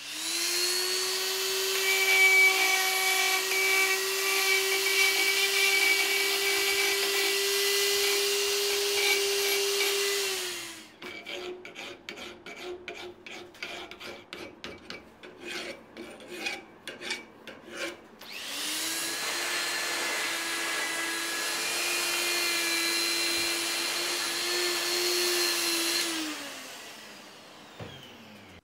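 Hand-held electric grinder running steadily for about ten seconds, then quick scraping strokes of a file on steel for about seven seconds, then the grinder running again and winding down near the end.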